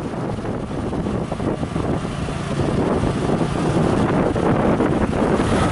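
Motorcycle-drawn tuk-tuk on the move: the motorbike's engine running under a steady rush of wind and road noise on the microphone, growing louder over the first few seconds.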